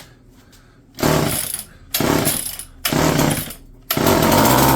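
Homelite EZ two-stroke chainsaw engine being pull-started on fuel poured down the carburetor: three short bursts on successive pulls, then it catches and runs steadily from about four seconds in.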